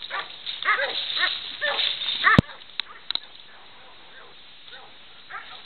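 Boar-hunting dogs barking in quick succession as they bail a boar, several barks a second for about two seconds, cut off by a sharp knock; after that only a few faint barks, and another sharp knock at the end.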